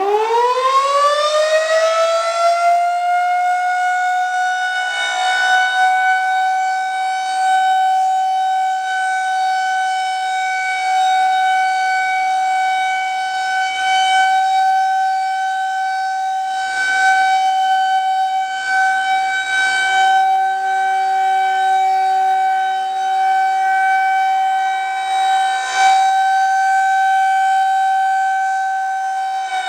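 Federal Signal 2001-130 rotating electromechanical siren sounding its steady alert test tone, pretty loud. It winds up quickly in the first couple of seconds, then holds one steady pitch while its loudness swells and dips as the rotating head sweeps past.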